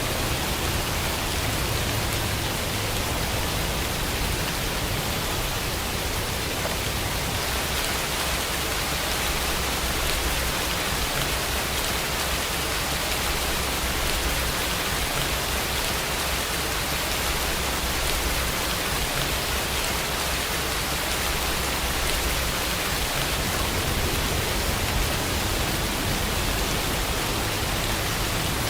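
Steady rain, an even hiss without change.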